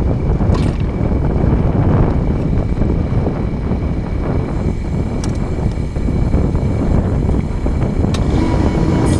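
Mini excavator engine running steadily, a loud, even rumble.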